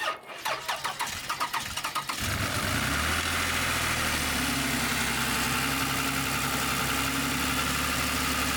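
2008 Toyota Sienna's 3.5-litre V6 cranking on the starter for about two seconds, then catching and settling into a steady idle. It is a first start after a new water pump, thermostat and tensioner pulley, and the idle is smooth.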